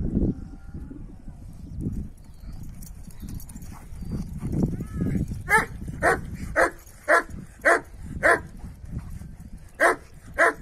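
Kangal shepherd dogs tussling over a bone: low growling and scuffling, then from about halfway a run of eight or so short, sharp barks, roughly two a second, with a brief pause before the last two.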